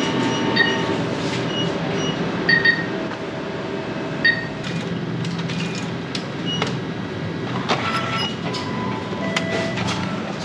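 ATM keypad beeping several times as the withdrawal amount is confirmed, then the cash dispenser's mechanism clicking and whirring as it counts out the notes and opens its shutter, over a steady low rumble.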